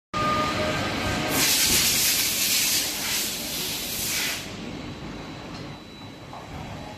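A 1200-ton cold-forging hydraulic press working: a loud hiss starts about a second in and lasts about three seconds, then drops to a quieter, steady machine noise.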